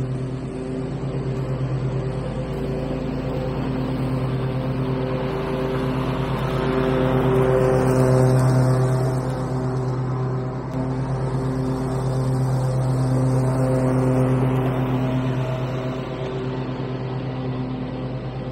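A John Deere riding lawn mower's small engine runs steadily at working speed as the mower drives along a gravel driveway blowing leaves, swelling louder as it passes close about eight seconds in and then fading off.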